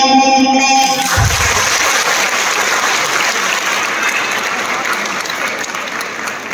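Dance music ends about a second in, and a hall audience applauds, the clapping slowly dying away.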